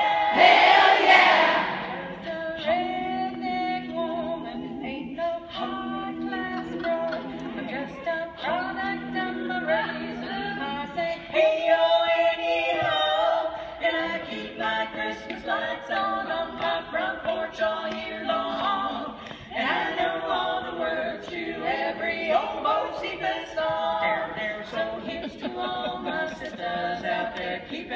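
Women's barbershop quartet singing a cappella in four-part harmony, loudest in the first couple of seconds.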